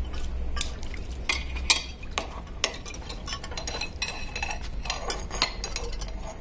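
Dishes and cutlery being handled and cleared on a kitchen counter: irregular clinks and clatters, some ringing briefly, over a low steady hum.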